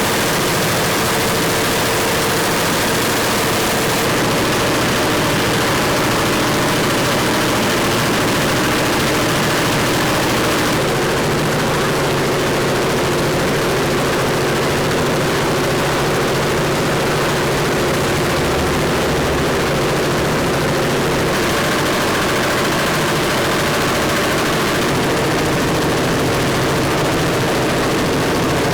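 Loud, steady mechanical noise whose character shifts abruptly a few times.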